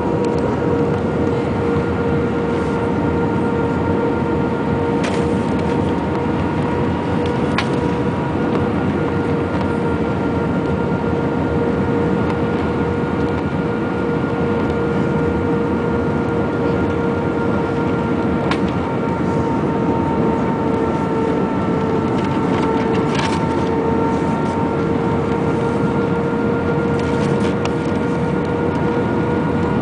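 Airbus A319 heard from inside the cabin on approach: a steady rumble of engines and airflow with a steady whine over it, and a few faint clicks.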